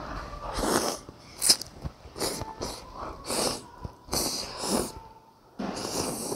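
Rice noodles being slurped up in a run of short airy sucks, one about every half second, then a longer slurp starting near the end.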